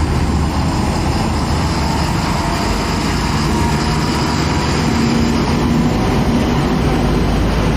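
A truck engine running steadily: a loud, even noise with a low drone underneath.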